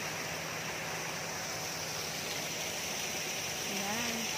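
Steady rush of flowing water in a fishpond, an even hiss with no rhythm.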